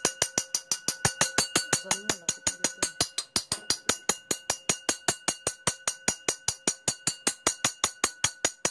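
Rapid, perfectly even ticking, about six and a half ticks a second, played as the sound cue in a rat conditioning trial, with a faint steady tone beneath it.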